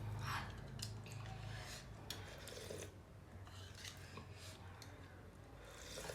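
Faint scraping and clinking of a spoon against a plate while eating, with soft rustles.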